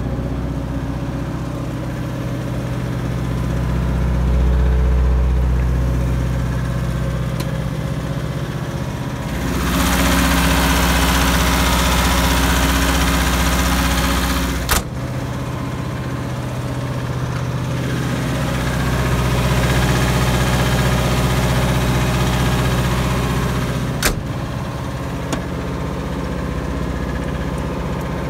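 Perkins diesel engine of a 50 kW generator running steadily inside its sound-attenuated enclosure. For about five seconds, while an engine-compartment door stands open, it is much louder. It drops back with a sharp click as the door shuts, and a second click comes later.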